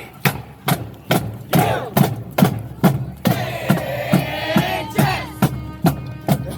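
Marching band drumline playing a steady beat of about two to three strokes a second, with voices shouting over it.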